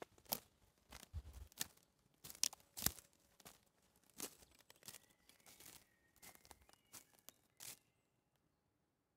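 Footsteps crunching on a dry forest floor of twigs and conifer needles, an irregular run of short crackles that stops near the end.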